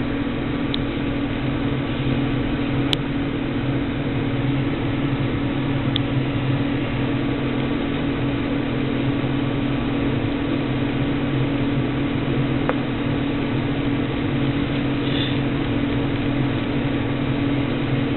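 Steady low hum with hiss, with a few faint, scattered clicks.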